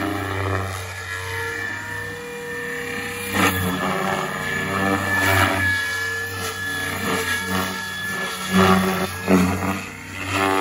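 SAB Goblin Kraken electric RC helicopter flying aerobatics: a steady motor and gear whine with the three-blade rotor whooshing. It swells and dips as the helicopter turns, loudest in a few sharp swells near the end.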